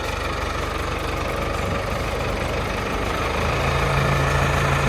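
An engine running steadily at idle with a low hum. About three and a half seconds in it picks up, a little louder and with a firmer low note, as the cross beams are being lifted into place.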